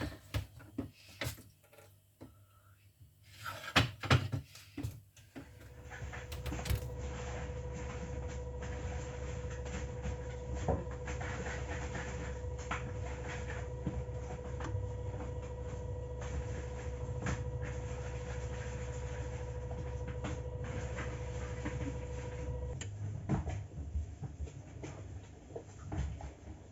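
A few clicks and knocks, then a refrigerator compressor starts and runs on power from an inverter voltage stabilizer. It makes a steady electrical hum with a constant whine, and the whine cuts off near the end while a lower hum continues.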